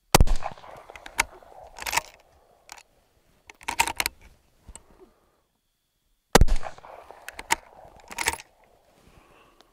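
Two shots from a bolt-action Ruger American Ranch rifle in .223, about six seconds apart, each with a short ringing tail. Shorter metallic clicks and rattles follow each shot as the bolt is worked.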